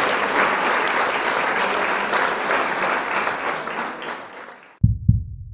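Surf breaking on a rocky shore: a steady crackling hiss of waves that fades out about four seconds in, followed by a few short low thumps near the end.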